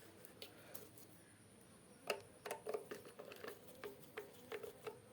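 A screw being undone with a screwdriver while the wall fan's housing is handled, heard as faint, light clicks and taps. The clicks come a few a second from about two seconds in.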